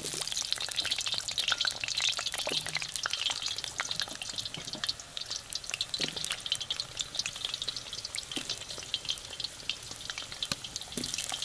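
Potatoes deep-frying in hot oil in a kazan: a dense crackling sizzle with many small pops, starting abruptly.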